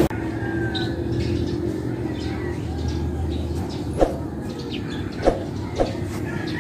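Outdoor garden ambience: a steady background hum with faint bird chirps, and three short knocks in the second half.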